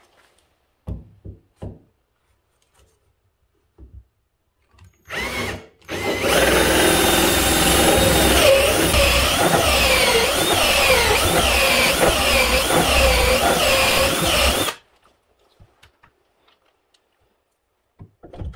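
Electric drill boring into wood: a short burst, then a steady run of about eight seconds whose pitch sags and recovers again and again under load. A few light knocks come before it.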